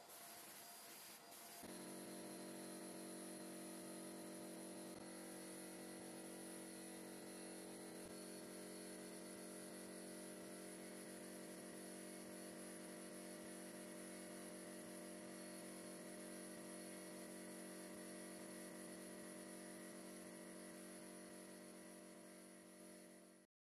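Sandblast cabinet running while a metal coin bank part is blasted: a faint, steady hum with a high hiss of blasting air. It steps up in level a second or two in and cuts off suddenly near the end.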